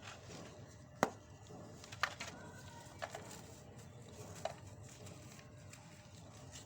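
Hard lumps of pure cement being crushed and crumbled, with four sharp cracks spaced about a second apart, the first the loudest, over a faint gritty crunching.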